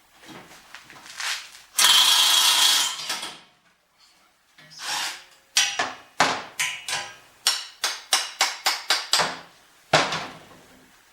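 Work on a steel display rack being taken apart: a brief rasping burst about two seconds in, then a quick run of about fifteen sharp knocks on the metal, roughly four a second, with one more knock near the end.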